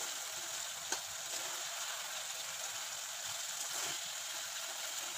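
Fish curry sizzling in an aluminium kadai as a spatula turns fried tilapia pieces in the thick gravy, a steady hiss with one sharp click about a second in.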